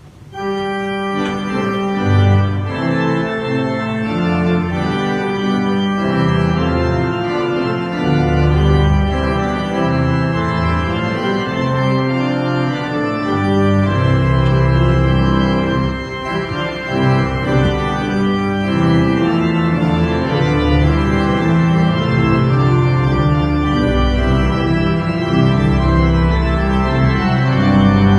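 Church organ playing slow sustained chords over deep bass pedal notes, coming in suddenly about half a second in.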